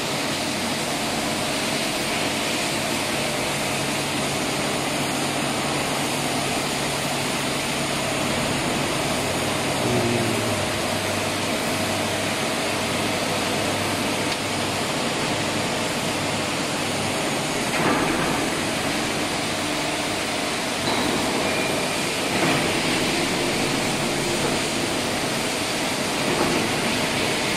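Large CNC milling machine running in a factory hall without cutting: a steady mechanical hum and hiss from its drives. The low hum shifts about ten seconds in, and a few faint knocks come later.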